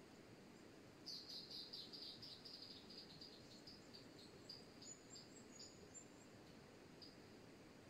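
A small bird calling: a run of quick high chirps starting about a second in that slows and fades over a few seconds, with a few higher notes partway through. Under it, a faint steady rush of river water.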